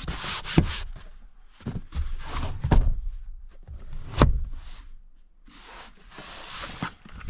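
Car doors and body panels being handled: several dull thunks and clunks with scuffing and rustling in between.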